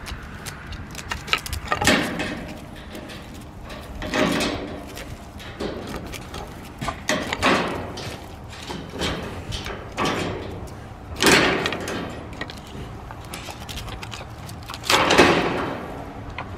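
A Shiba Inu pawing through a gap in a wire mesh fence, scraping and rattling as it claws a deer antler across dirt and a concrete block. The sound comes in irregular bursts, about six louder ones, with small clicks between.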